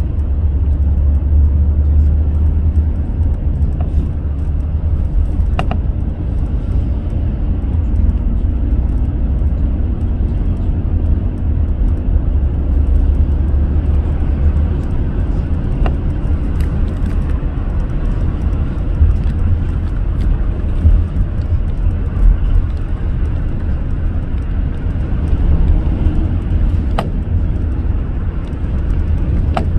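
Steady low rumble of a car driving along at speed, engine and tyre noise, with a few faint clicks.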